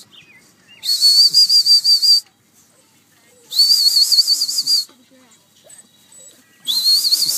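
A whistle blown in three long, warbling blasts of just over a second each, a couple of seconds apart. The last one is still sounding at the end.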